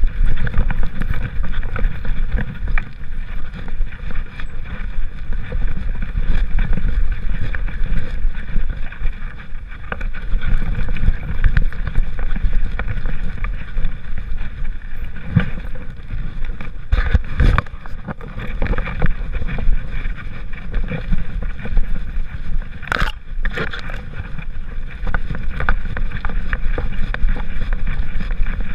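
Muffled, jittery rumbling and rubbing of a GoPro camera jostling on a walking dog's back, with wind on the microphone. A couple of sharp knocks come in the second half.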